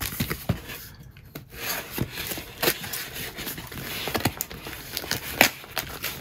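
Cardboard box being cut open: a knife scraping and slicing through packing tape while the cardboard flaps rub and crinkle, in an irregular run of scrapes with a few sharp clicks.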